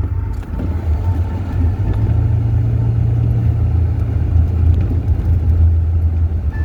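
Car on the move, a steady low rumble of engine and road noise.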